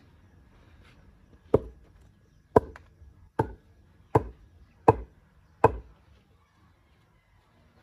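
Six dull thuds, a little under a second apart, as a thick wooden pole is rammed down to tamp stiff clay packed between the stones of a dry-stone retaining wall, the clay standing in for mortar.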